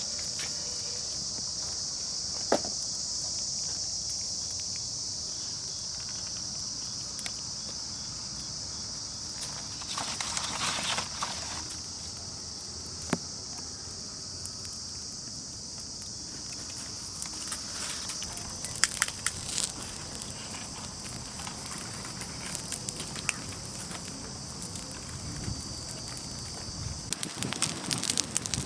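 A steady high-pitched insect chorus, with a few scattered clicks and short bursts of crackling or rustling. Near the end the chorus drops away and louder rustling starts.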